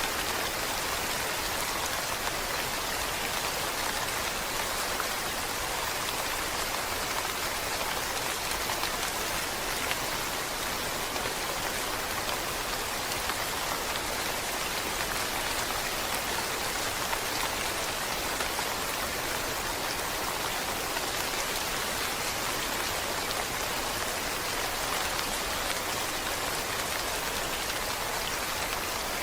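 Steady rain falling, a dense even hiss of drops on a surface with faint individual drop ticks.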